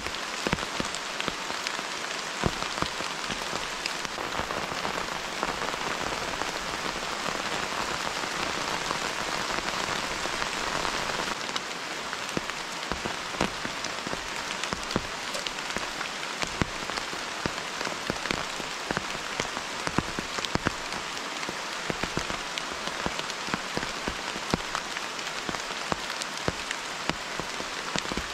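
Steady rain, with many sharp taps of single drops through the hiss; it eases slightly about eleven seconds in.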